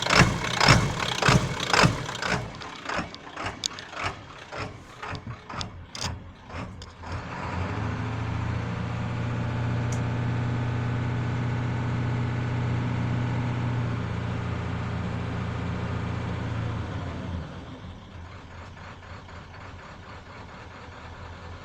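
Ford 7.3 Powerstroke diesel V8 running with a rough, loping idle: uneven, heavy pulses that rise and fall for the first several seconds, the lope typical of this engine just after a cold start. It then runs louder and steady for about ten seconds before settling to a quieter, even idle near the end.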